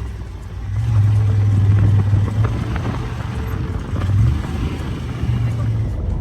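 A vehicle running: a steady low rumble that dips at first, swells about a second in and wavers in level.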